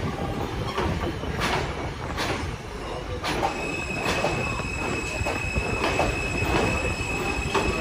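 New York City Subway L train rolling through a station without stopping, its wheels clacking over rail joints over a low rumble. A steady high-pitched wheel squeal sets in about three and a half seconds in.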